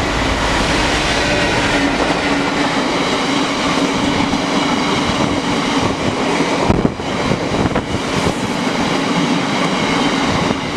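A GBRF Class 66 diesel freight locomotive, with its EMD two-stroke V12 engine, passes close by. It is followed by a long rake of cement tank wagons rolling past with a steady wheel rumble and hiss, a constant hum, and occasional rail-joint clacks.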